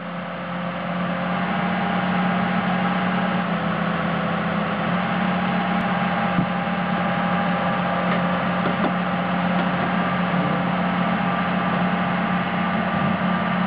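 An engine running steadily with a low hum; it grows louder over the first second or two, then holds.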